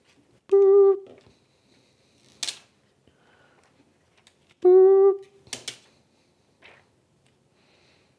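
A voice hums a short, steady, high note twice, about four seconds apart. Between the notes come sharp plastic clicks from the peel-off film of a tempered glass screen protector being handled.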